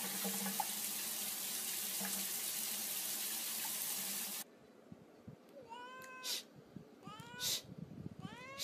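A steady rushing hiss for about the first half, cut off suddenly. Then a cat meows three times, each call rising in pitch and ending in a short harsh burst, a little over a second apart.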